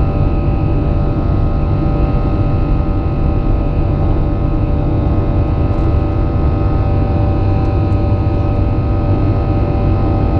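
Airplane engines running steadily in flight: a loud low rumble with several steady tones over it.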